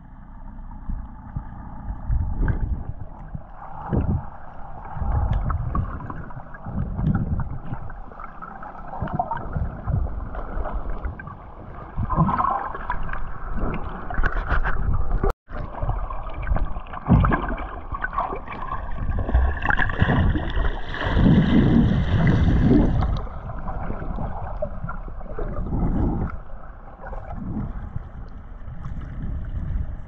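Muffled water sloshing and bubbling against an underwater camera in the sea, in irregular low surges. It breaks off for an instant about halfway through, and turns hissier for a few seconds past the middle.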